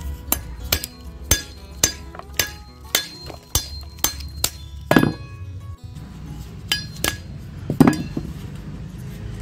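Background music with sharp clicks about twice a second, thinning out after about five seconds, and two duller, louder knocks about five and eight seconds in.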